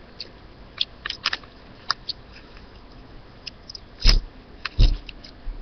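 Small paper gum wrapper handled, torn and folded by fingers: scattered small crinkles and ticks, with two louder thumps about four seconds in and again a moment later.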